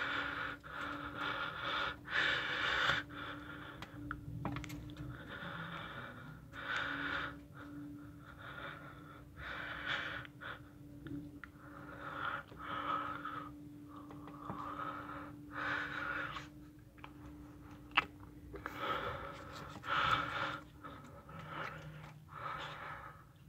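Heavy breathing close to the microphone, a breath every second or two, from someone out of breath after running. Underneath is a steady hum from the garbage truck, which stops near the end.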